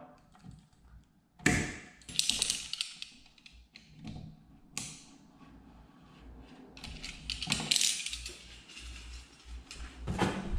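Side cutters snipping through sheathed electrical house-wiring cable with one sharp snap about a second and a half in, followed by crackling and rustling as the cut cable and tool are handled, another click, and a knock near the end.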